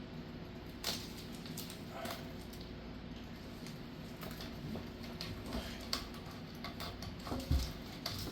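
Scattered small clicks and rustles of self-fusing waterproof tape being handled and wrapped around a sink pipe, with a low thump about seven and a half seconds in, over a steady faint hum.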